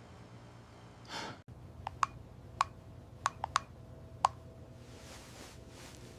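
A short breathy swell, then a run of about seven sharp clicks or taps at uneven spacing over a couple of seconds, over a faint steady hum.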